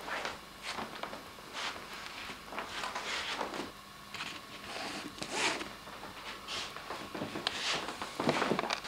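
Rustling and rubbing handling noises: a string of short, irregular swishes and scrapes.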